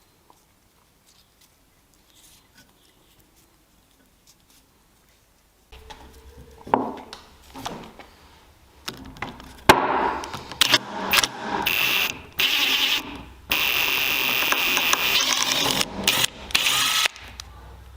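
Near silence, then a few knocks of workpieces being handled. From about ten seconds in, a power tool runs in several bursts of one to three seconds each, starting and stopping abruptly.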